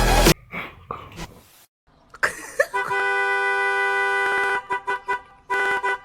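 Car horn honking: one long blast of about two seconds, then a quick run of short toots and another brief honk near the end.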